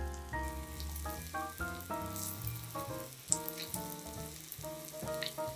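Food sizzling in a hot frying pan, with a few small pops, under background music of light instrumental notes.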